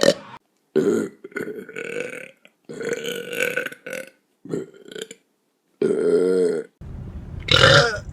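A rapid string of loud human burps, about six in a row, each cut off by a moment of dead silence. The last one, near the end, is among the loudest.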